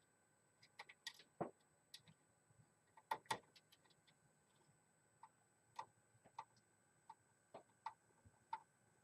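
Faint, irregular small clicks of a screwdriver and screw against a CPU cooler's fan and heatsink as a mounting screw is worked in, with two louder clicks close together about three seconds in.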